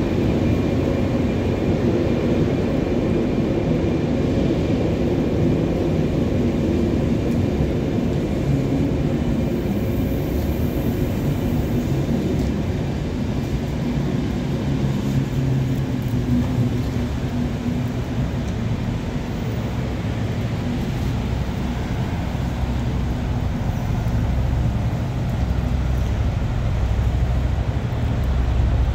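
Irish Rail Class 22000 Intercity Railcar, a diesel multiple unit, moving slowly out along the platform: a steady diesel engine drone with the low rumble of the train.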